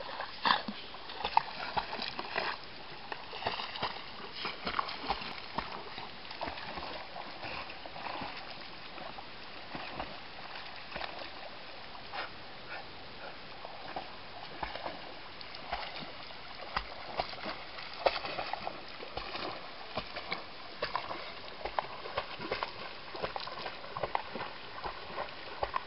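A dog swimming and splashing in lake water, snapping at the bubbles she churns up at her muzzle, with irregular small splashes and slaps.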